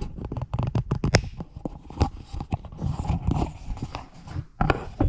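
Handling noise from a hand-held camera being gripped and carried: fingers rubbing and knocking on the body next to the microphone, an irregular string of clicks, rustles and rumble. It ends with a sharp knock near the end as the camera is set down.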